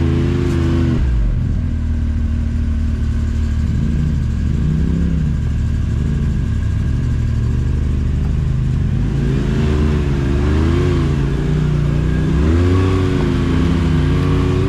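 Can-Am Maverick X3 side-by-side's engine running under varying throttle while crawling over rocks, its pitch rising and falling again and again.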